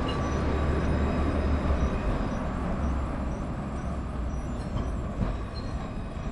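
Alstom Citadis 402 tram moving slowly past at close range: a steady low rumble of the vehicle on its track, easing off slightly toward the end.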